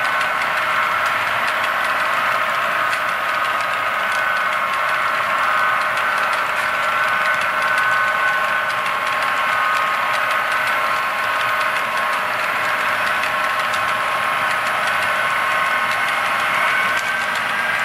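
HO scale model coal train running past: the hopper cars' wheels roll steadily on the track under a steady diesel-engine drone from the layout's locomotives.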